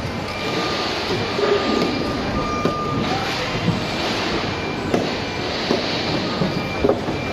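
Corrugated cardboard watermelon box being folded and assembled by hand, its flaps creased and pressed down, with a few sharp knocks in the second half, over a steady din of warehouse noise.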